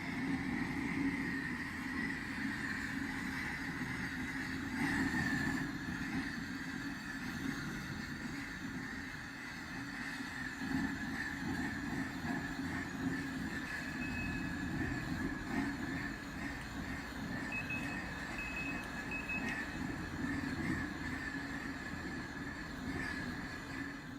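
Gas forge's two propane torch burners running with a steady rushing noise and a low hum.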